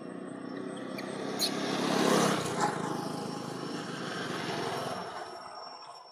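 A motor vehicle passing by: its engine hum and road noise grow to a peak about two seconds in, then fade away.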